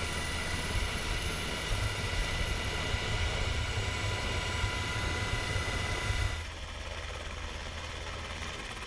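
MH-60S Sea Hawk helicopter heard from inside its cabin: a steady turbine whine over a deep rotor rumble. About six seconds in it cuts to a quieter, more distant helicopter rumble without the whine.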